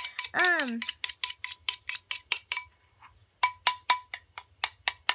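A spoon stirring in a glass bowl, clinking against the side about six times a second with a ringing note, pausing briefly about three seconds in. A short hummed voice sound comes near the start.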